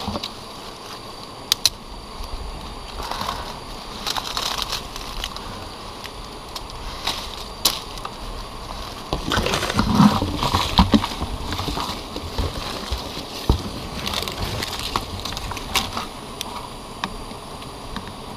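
Handling noises of a wild honeycomb being cut from a tree branch into a plastic bucket: rustling of leaves and comb with scattered sharp clicks and knocks, loudest a little past the middle.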